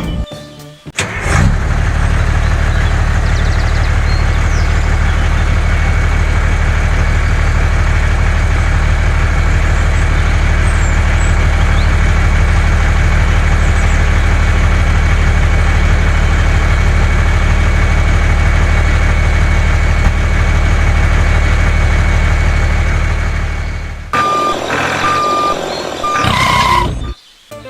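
Truck engine running steadily and loudly for about twenty seconds, then cutting off. Near the end come a few short beeps like a reversing alarm.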